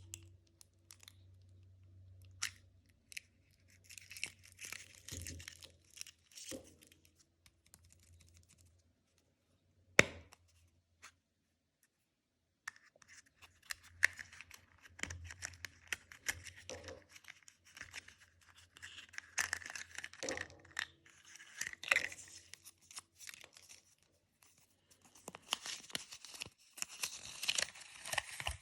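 Kinder Surprise egg's foil wrapper crinkling and tearing as it is unwrapped by hand, in irregular bursts with many small sharp clicks and one loud snap about ten seconds in.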